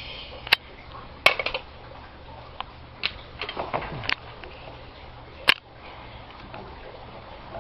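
Sharp metallic clicks and clinks of tools and fittings on galvanized gas pipe: a scattered series of knocks, the loudest just over a second in, with a cluster around three to four seconds.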